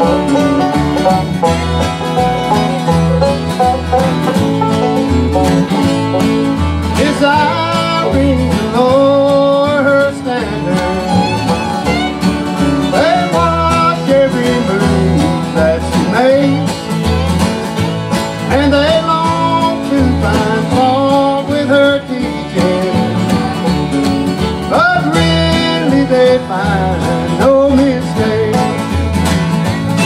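Bluegrass band playing live: banjo, fiddles and acoustic guitars over an upright bass keeping a steady beat, with sliding fiddle lines carrying the melody.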